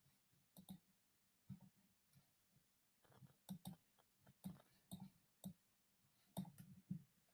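Faint, irregular clicks and small taps, about a dozen, from equipment being handled while a camera that dropped out is dealt with.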